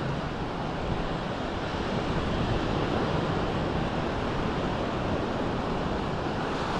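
Surf washing onto the shore in a steady hiss, with wind rumbling on the microphone.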